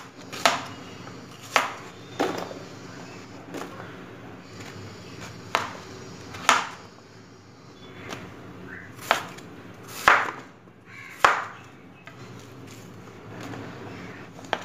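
Kitchen knife chopping raw plantain and tubers on a wooden cutting board: about eight separate sharp knocks at irregular intervals.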